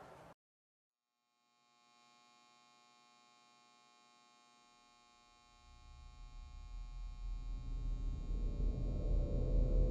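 Suspenseful ambient drone. After a moment of silence, a faint steady chord of many held tones fades in. About halfway through, a deep low rumble swells in beneath it and grows steadily louder.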